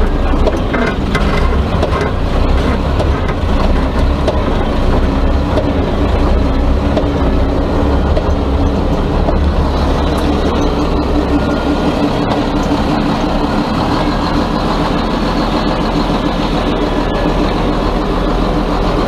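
Yuchai diesel engine of a Chinese front loader running under load, with occasional metallic knocks, and a steady higher tone comes in about halfway through. The owner puts the knocking play down to worn pins.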